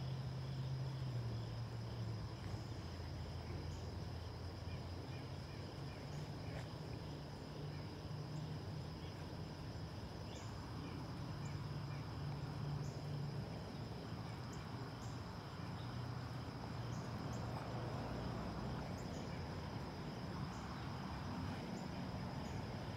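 Low, steady rumble of an Airbus A321 jet airliner passing high overhead, drifting slightly in pitch. Over it, a steady high insect chorus and a few short high chirps.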